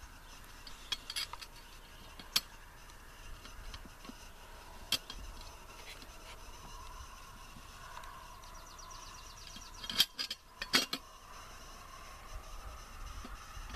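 Scattered sharp clicks and clinks of metal parts and tools being handled while a homemade anvil top is assembled, with a louder cluster of knocks about ten seconds in.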